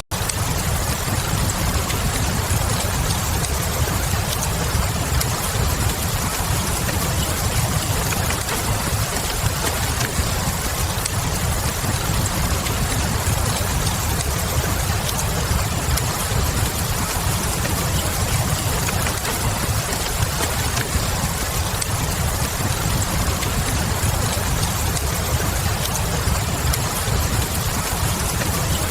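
Steady rain mixed with a fireplace fire: an even hiss of falling rain over a constant low rumble, with light scattered crackles from the burning wood.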